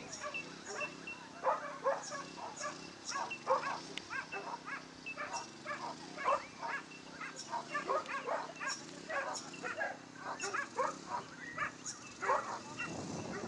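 Dogs barking over and over, two or three short barks a second, without letting up.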